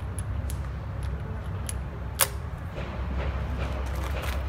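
Smith & Wesson Model 10 revolver being reloaded by hand: light metallic clicks as cartridges go into the open cylinder, then a sharper metallic click about two seconds in.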